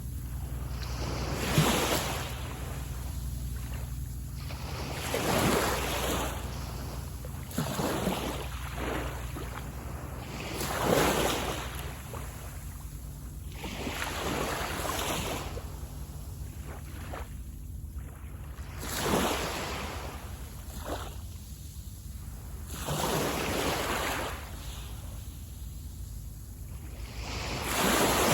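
Waves breaking and washing up the beach, one after another every three to five seconds, about eight in all, over a steady low rumble.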